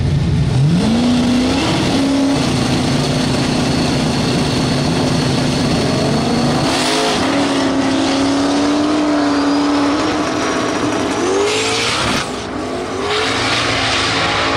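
Drag-race car engines on the start line: one revs up and is held at a steady high note. About seven seconds in, the cars launch hard and pull away down the strip, engine notes rising through the gears.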